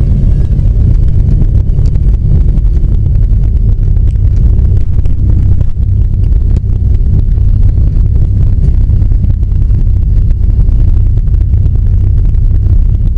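Ikarus C42 microlight's four-cylinder Rotax engine running steadily, heard as a loud, even rumble inside the cockpit, with wind buffeting the microphone.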